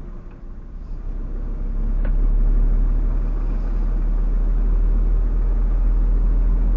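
Truck engine and road noise heard inside the cab: a steady low rumble that swells about two seconds in as the truck pulls through the turn, with a single click at about the same moment.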